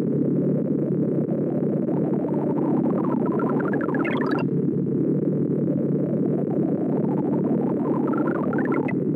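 ArrayV sorting visualizer's synthesized tones: a dense, rapid stream of short beeps, one per array access, their pitch following the value being read, so they sit mostly low. About three to four and a half seconds in, and again near the end, runs of beeps climb in pitch as a pass works up through the nearly sorted array.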